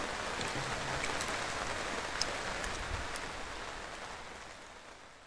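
Steady rain falling, an even hiss with a few faint drip clicks, fading out near the end.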